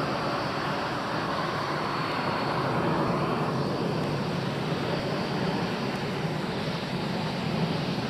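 Panavia Tornado's twin RB199 turbofan engines running at taxi power as the jet rolls past: a steady rushing jet noise with a thin high whine.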